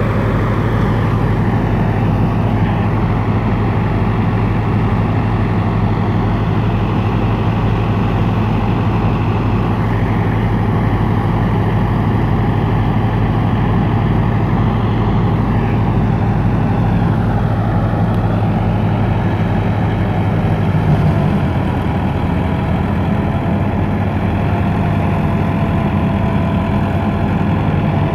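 Massey Ferguson 385 tractor's diesel engine running steadily under load, driving a thresher, with the thresher churning along in a continuous loud drone. The low note of the drone shifts slightly about two-thirds of the way through.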